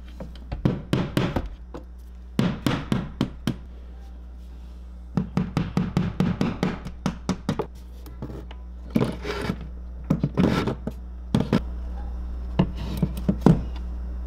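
A run of taps, knocks and clicks, in quick bunches with short pauses, from objects being handled and set down on a kitchen counter, over a low steady hum.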